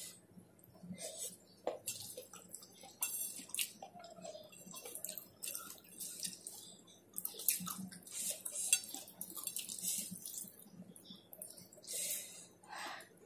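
Eating by hand from a stainless-steel plate: wet chewing and lip-smacking, with irregular short clicks from fingers scraping and tapping the metal plate.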